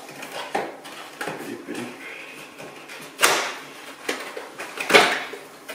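Cardboard box being opened by hand: scraping and tearing of cardboard and packing, with two louder rips about three and five seconds in.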